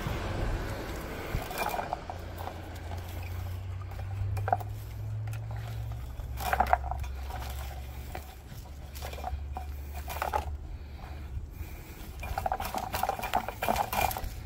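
Light clattering, clicking and rustling as an olive rake and its scoop are handled among olive branches, over a steady low rumble. The clatters come in short clusters, the busiest near the end.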